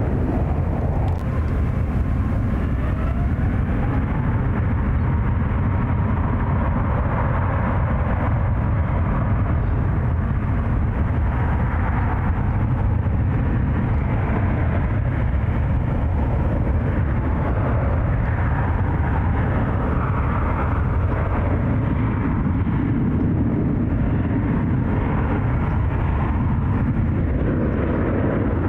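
Airbus A350's Rolls-Royce Trent XWB turbofan engines, a steady loud jet rumble with a faint whine that rises slightly in pitch over the first few seconds.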